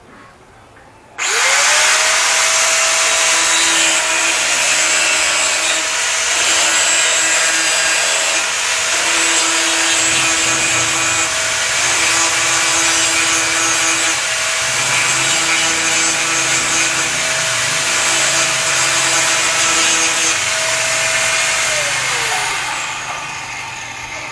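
Bosch Professional angle grinder switched on about a second in, spinning straight up to speed with a steady whine and grinding metal; near the end it is switched off and the whine falls away as the disc winds down.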